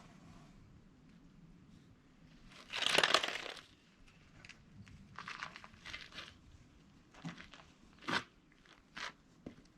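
A loud crunching, scraping burst about three seconds in, followed by scattered short knocks and scrapes.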